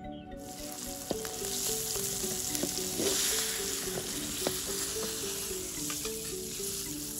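Salted fish frying in hot oil in a metal wok: a steady sizzle, with a few sharp clinks of a metal slotted spatula and perforated strainer against the wok as the fish are lifted out.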